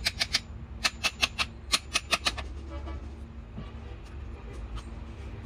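A quick, irregular run of sharp knocks or taps, about ten in the first two and a half seconds, then a few fainter clicks, over a low steady hum.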